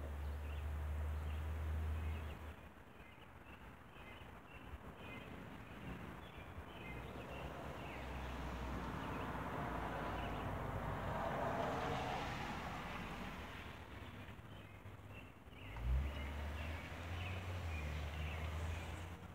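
Rainy-day yard ambience: a steady hiss of rain with small birds chirping faintly in the first half. A car passing on the wet road swells and fades in the middle, and wind rumbles on the microphone at the start and again near the end.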